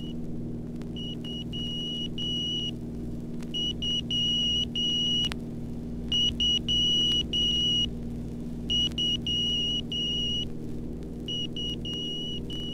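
Morse code identifier of the Agnew VOR navigation station (AGW) heard over the aircraft's omni receiver: a high steady tone keyed on and off in short and long beeps, the group repeating. Under it runs a steady low drone of aircraft engine noise.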